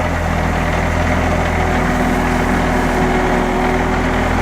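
An engine idling steadily with an even, unchanging low hum.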